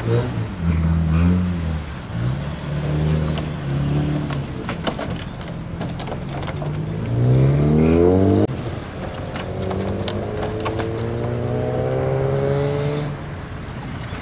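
Car engines running as modified, lowered cars drive out, with throttle blips at first and then two long rising revs. The first rev cuts off sharply partway through and the second fades near the end. A few sharp clicks sound among them.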